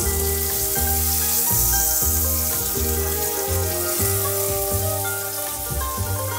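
A beef burger patty and sliced onions in butter sizzling in two frying pans, with background music over them: held notes that change every second or so.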